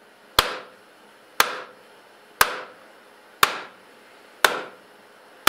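Hammer blows on a steel pipe driver, six evenly spaced strikes about a second apart, each with a short metallic ring. They are driving a new tapered roller bearing down onto a motorcycle steering stem to seat it.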